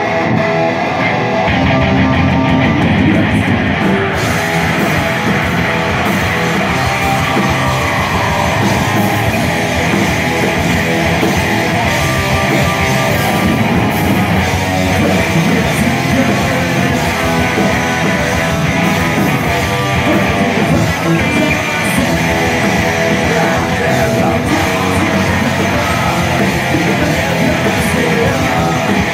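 Rock band playing live: electric guitars, bass guitar and drum kit, loud and continuous.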